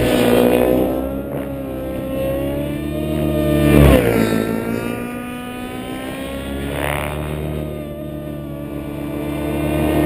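Radio-controlled helicopter's engine and rotors whining as it flies aerobatics overhead, pitch and loudness rising and falling with the manoeuvres, loudest about four seconds in.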